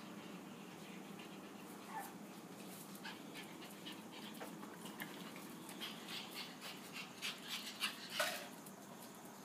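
Dogs panting and snuffling, with a couple of short whimpers and quick scuffling clicks that grow busier toward the end.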